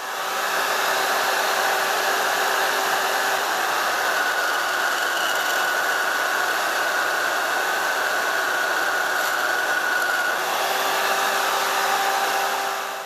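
Vertical bandsaw running and cutting through a flat metal strip: a steady whirring hiss that starts and stops abruptly. A higher steady whine joins in for the middle stretch.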